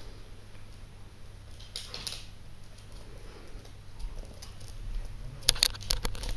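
Two Yorkshire terriers playing on a wooden floor: faint scuffling and pattering of paws, with a short rustle about two seconds in. Near the end comes a run of sharp clicks and low rumbling as the older dog's fur brushes against the camera.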